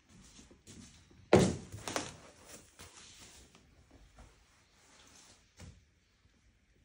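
Rustling and light knocks of things being handled in a small room, with one loud dull thump about a second and a half in and a smaller one half a second later.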